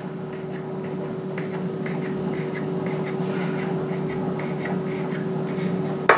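Kitchen knife drawn slowly along a rope of bread dough, splitting it lengthwise, with faint light ticks as the blade moves against the worktop. A steady hum runs underneath.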